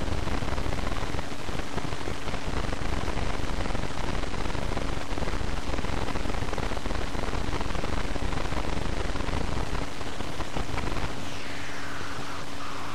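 Steady hiss with a faint low hum, and a falling whine sliding down in pitch near the end.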